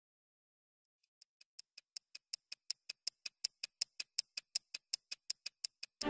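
A mechanical watch movement ticking quickly and evenly, about five ticks a second. It fades in from silence about a second in and grows steadily louder.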